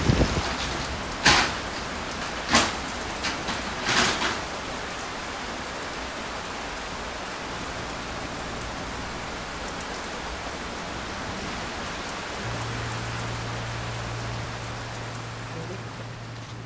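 Heavy typhoon rain falling steadily, with a few sharp knocks in the first four seconds. A low steady hum comes in near the end.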